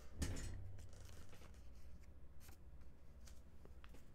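Paper rustling as handwritten notes are handled, followed by a few faint scattered clicks.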